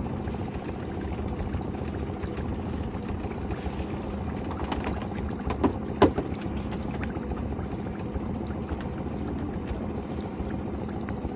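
Small boat's engine idling steadily, with water trickling and splashing against the hull. Two sharp knocks about halfway through are the loudest sounds.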